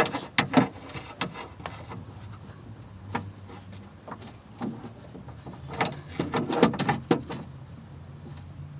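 Hands and a tool working inside a car door cavity: a string of short knocks, clunks and rattles against the door's inner panel and window hardware, busiest in the first second and again around six to seven seconds in. A low steady hum runs underneath.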